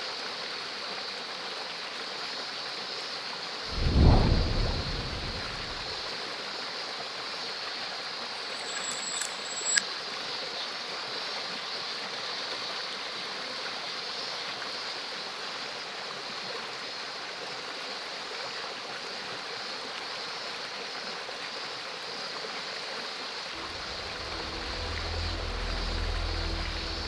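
Steady rush of a stream flowing over rocks, with one loud low thump about four seconds in and a couple of faint clicks a few seconds later.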